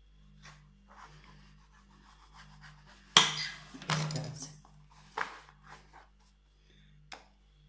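Kitchen knife scraping and rubbing through a stack of thin half-cooked rotis on a plastic cutting board, with a louder sudden scrape and knock about three seconds in as the halves are pulled apart, and a couple of shorter knocks after.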